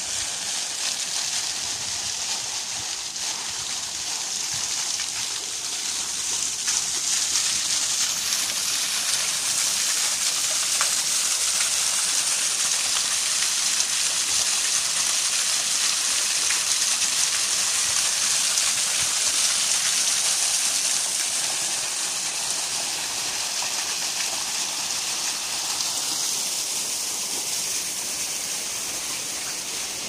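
Small waterfall pouring down a stacked-stone wall and splashing onto the rocks below: a steady hiss of falling water, louder through the middle and easing off again near the end.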